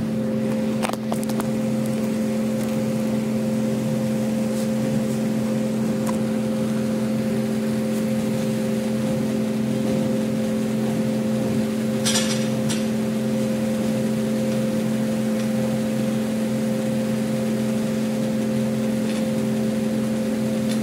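Steady electric motor hum, as from a wall exhaust fan running, holding one even pitch throughout, with a brief hissing rustle about twelve seconds in.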